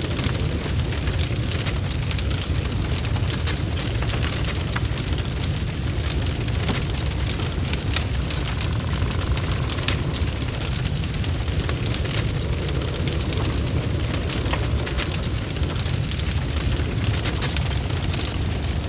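Bonfire crackling: frequent sharp pops and snaps over a steady low rumble of burning.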